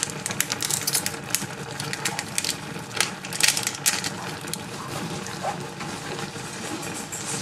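Noodles in sauce with cheese sizzling and spattering in a frying pan: a dense crackle with sharper pops now and then.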